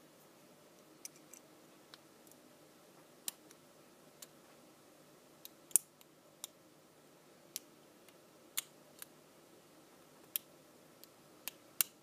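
Small, sharp clicks at irregular intervals, about a dozen, as a lock pick and tension tool work the pins inside a Master Lock 410 lockout padlock; one click about six seconds in is much louder than the rest.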